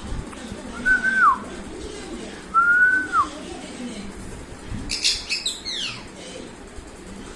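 Two clear whistled notes, each held level and then dropping at the end, followed about five seconds in by a parrot's short, harsh screech with falling sweeps.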